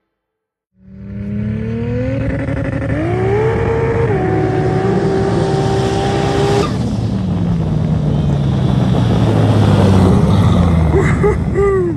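Side-by-side UTV engine revving up about a second in, its pitch rising over about three seconds and then holding high. After a cut, a UTV engine runs lower and slowly drops in pitch, with a few short chirps near the end.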